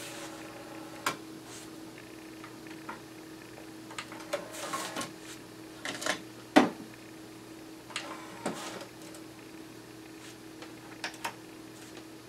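Sony TC-K850ES cassette deck transport and door being worked by hand: a click about a second in, a short mechanical rattle around four to five seconds, then the loudest, a sharp click as the cassette is pulled from the door, and more clicks near eight and eleven seconds as the door is shut. A steady hum runs underneath.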